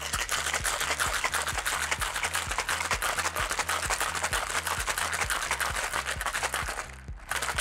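Ice rattling fast and hard inside a metal cocktail shaker as it is shaken, stopping about seven seconds in.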